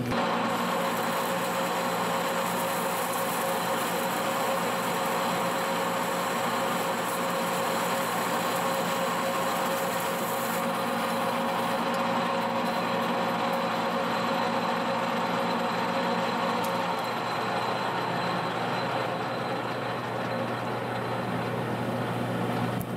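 Monarch engine lathe taking a heavy turning cut on a hay-rake spindle: the spindle drive runs steadily under the steady sound of the tool cutting while the chips come off in long stringy ribbons rather than breaking. The sound changes and eases a little about seventeen seconds in.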